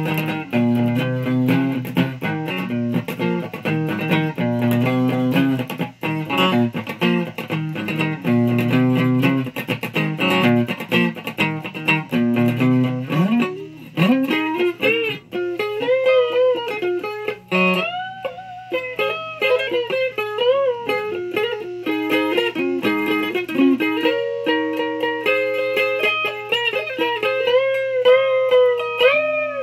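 Electric guitar playing a repeated chordal riff, then switching about halfway through to single-note lead lines with string bends and vibrato.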